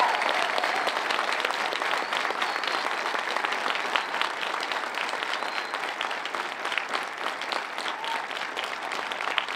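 A crowd applauding: dense clapping that slowly dies away.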